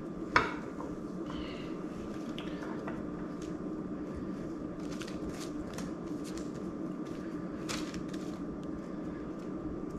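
Soft taps and rustles of hands placing chopped carrot pieces onto a bed of vegetables on parchment paper, with a sharp tap about half a second in, over a steady room hum.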